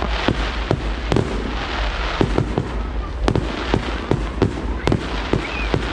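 Fireworks going off in an irregular string of sharp bangs, about two or three a second, over a steady background hiss.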